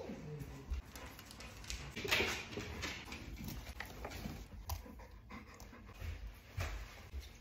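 Golden retrievers panting excitedly, with a short whine falling in pitch at the very start, among the rustle and knocks of leashes being handled.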